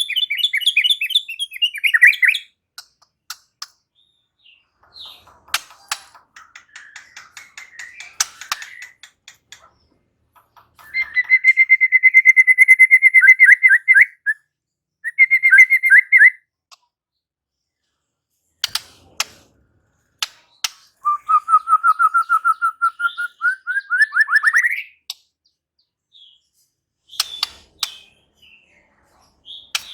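White-rumped shama (murai batu) singing in separate phrases of fast, rapidly repeated notes and trills, with pauses and a few sharp clicks between them. One later phrase climbs steadily in pitch.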